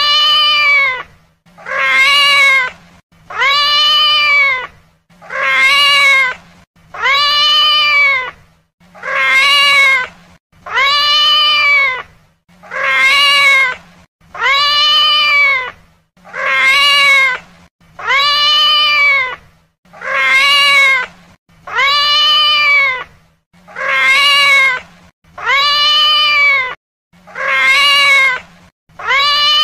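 A domestic cat meowing, the same meow repeated again and again at about one every two seconds. Each call lasts about a second and rises then falls in pitch.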